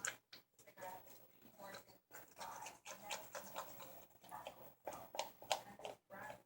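Thick shampoo-and-salt slime mixture being stirred in a bowl with a mixing tool: a run of short, irregular sounds with brief gaps.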